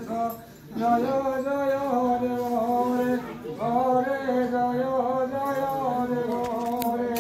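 A priest chanting a Hindu mantra in long, held notes on a steady pitch, pausing for breath about half a second in and again around three seconds in.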